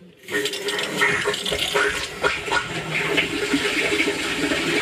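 Mains-pressure water rushing through a newly fitted lever valve and pipe into a cold-water storage tank; the flow starts suddenly about a third of a second in as the valve is opened and stays very, very loud and steady.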